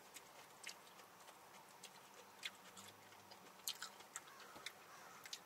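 Faint, irregular clicks and smacks of people chewing and handling fried chicken close to the microphone.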